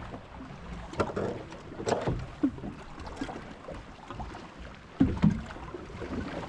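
Scattered knocks and clunks of gear being handled in a fishing boat, over low wind and boat background noise.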